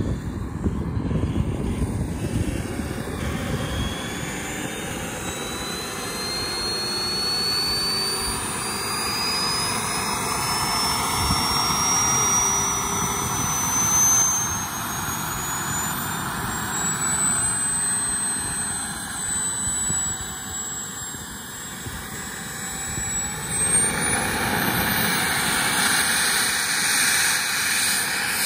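Jetcentral 90N model jet turbine spooling up: a high whine climbs steadily in pitch for over ten seconds, holds level for several seconds, then climbs again about three-quarters of the way through as a louder rushing roar builds.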